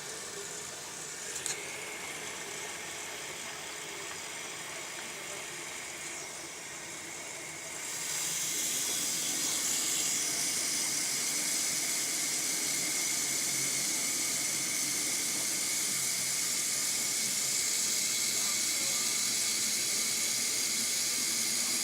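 Water running from a tap to fill a humidifier's water tank: a steady rushing hiss that turns louder and brighter about eight seconds in and then holds.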